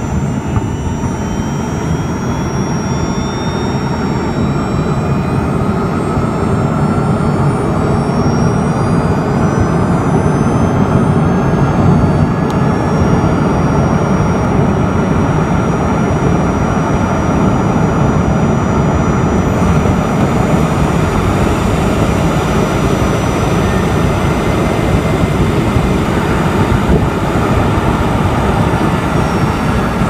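Honda Step WGN e:HEV (i-MMD) electric drive motor and inverter whining as the car drives in EV mode, heard from inside the engine bay. Several high tones rise in pitch as the car accelerates, then hold steady at cruising speed over road and tyre noise.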